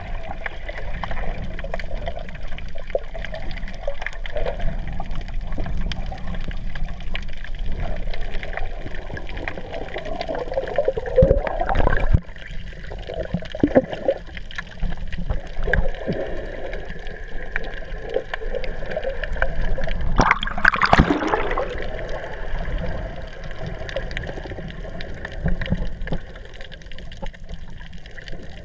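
Water heard underwater while snorkeling: a steady muffled sloshing and gurgling, with louder surges of water noise about eleven seconds in and again about twenty seconds in.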